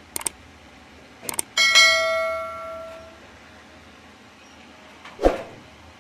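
Subscribe-button animation sound effects: two quick mouse clicks, then two more clicks and a notification bell ding that rings out for about a second and a half. A single dull thump comes near the end.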